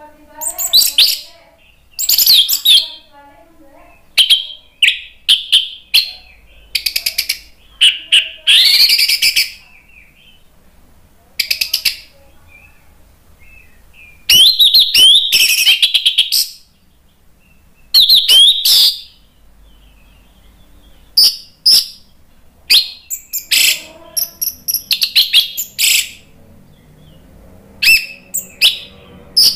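Caged orange-headed thrush singing loudly in a series of varied phrases, each a second or two long with short gaps between them. Whistled, gliding notes mix with fast runs of repeated notes.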